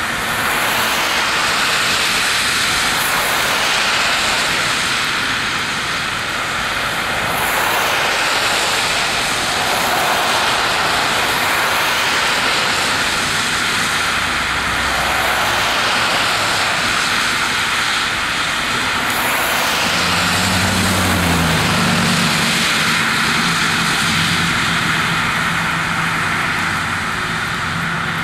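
Cars and SUVs driving through deep standing water on a flooded road, their tyres throwing up heavy spray: a loud rushing hiss that swells as each vehicle passes. About two-thirds of the way through, a vehicle engine's low hum comes in under the spray.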